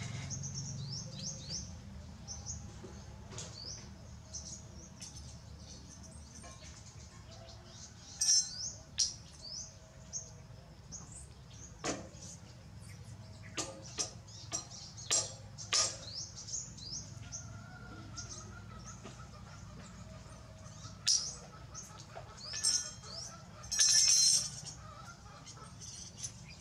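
Repeated short, high-pitched chirps and squeaks from a small animal, with several sharp clicks, over a low steady hum. The loudest cluster of chirps comes near the end.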